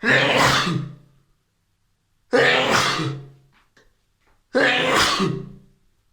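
A man sneezing three times in a row, about two seconds apart, each sneeze a sudden burst that fades over about a second.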